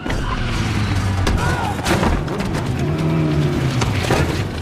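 Motorcycle engines revving up and down, with several sharp hits in between.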